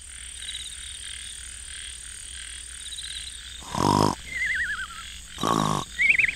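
Cartoon snoring sound effect: two short rattling snores, each followed by a wavering whistle, over a steady night-time ambience of high chirping like frogs and insects.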